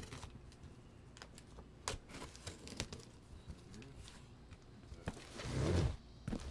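Cardboard shipping box being opened by hand: scattered clicks and crinkling of tape and flaps, with a longer, louder rustle near the end.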